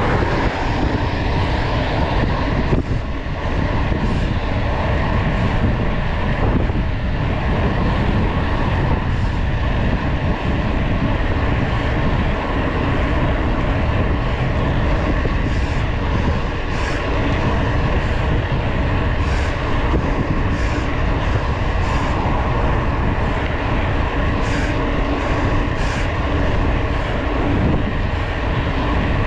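Wind rushing over the microphone and the mountain bike's tyres rolling on asphalt at speed: a steady, loud rush with a heavy low rumble.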